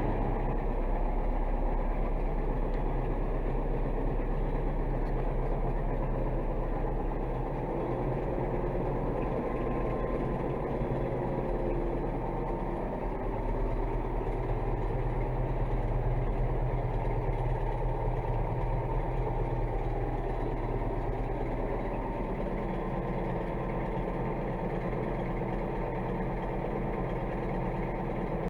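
DT-75 crawler tractor's diesel engine running steadily, heard from inside the cab: a low, even drone with faint whining tones that drift up and down in pitch.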